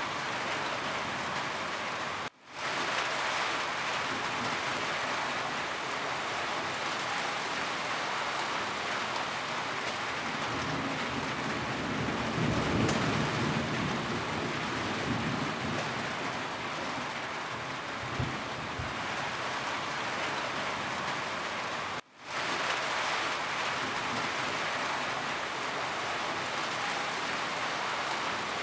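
Steady heavy rain on a roof, with a low rumble of thunder swelling about halfway through. The rain cuts out for a split second twice.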